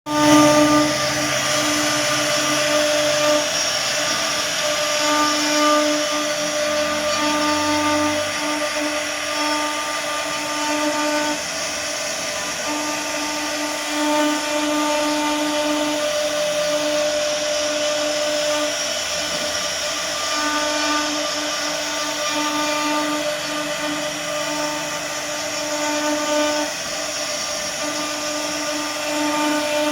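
CNC router spindle running and cutting: a steady whine over a hiss, its tones swelling and fading every second or two.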